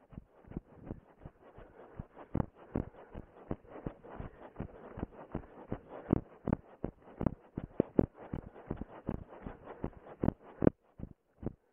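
Running footfalls on dry ground, carried through a body-worn camera: a steady run of dull thuds, about three a second, that thin out and stop near the end.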